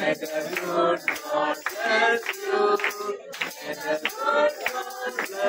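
A group of people singing together, with held notes.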